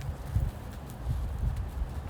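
Horse's hoofbeats, with wind buffeting the microphone as a low rumble.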